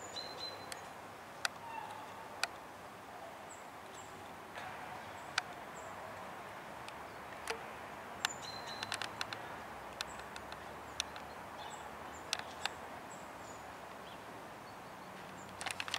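Faint outdoor ambience: a steady low background hum with short, high bird chirps now and then and scattered sharp clicks.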